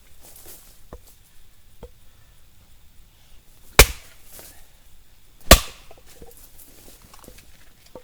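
Firewood being split: two sharp, loud blows about a second and a half apart, with a couple of light knocks before them.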